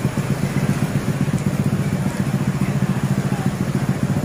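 Small motor scooter engine idling close by, running at low speed with a steady, fast low pulse.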